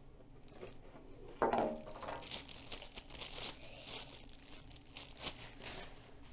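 Plastic packaging crinkling and rustling as the plastic parts of a cordless electric spin scrubber are handled and fitted together, with a short loud squeak about a second and a half in.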